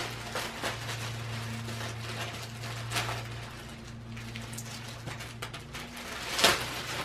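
Packaging rustling and crinkling as a wireless keyboard is unwrapped and handled, with small clicks and a louder rustle near the end. A faint steady hum runs underneath.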